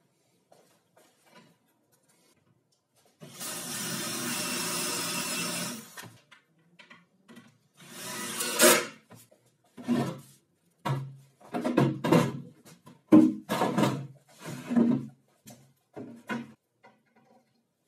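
Cordless drill driving screws into chipboard panels. One steady run of about three seconds, then a string of short bursts about a second apart as screws are driven home.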